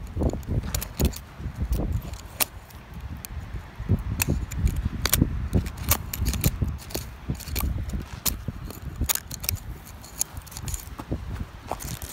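A metal screwdriver tip scraping and digging into dry, gritty soil, with irregular scratches and sharp clicks as grit and small stones strike the blade.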